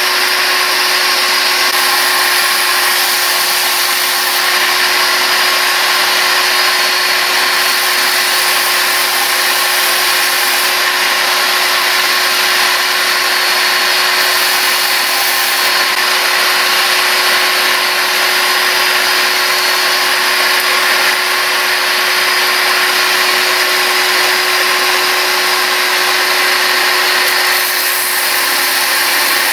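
A 230 mm (9-inch) angle grinder with a standard metal-cutting disc, clamped disc-up in a vice, runs at a steady full speed with one constant pitch. Near the end a sheep shear blade held on a magnet is pressed against the disc and ground, throwing sparks.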